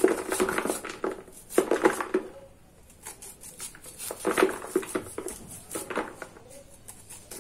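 Kitchen knife scraping kernels off an ear of fresh corn into a plastic basin, in about four bursts of quick strokes with kernels dropping into the bowl. The corn is tender, so the kernels come off easily.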